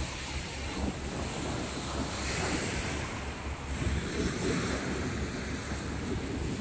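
Sea waves washing onto a shingle beach, with wind buffeting the microphone; a wave's wash swells about two seconds in.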